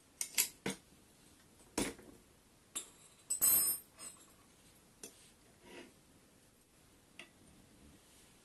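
Metal scooter fork plates and bolts clinking and clicking as they are handled and fitted. There are several sharp clicks in the first two seconds, a louder rattling scrape at about three and a half seconds, and a few fainter clicks after it.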